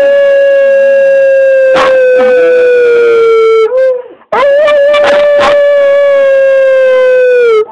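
A small dog howling in two long, steady howls, each sagging slightly in pitch as it ends, with a short break between them a little before halfway. A few sharp clicks sound over the howls.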